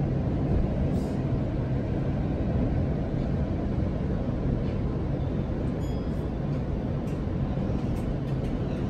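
Steady low rumble of a JR East E231 series 800 commuter train running, heard from inside the carriage, with a few faint clicks.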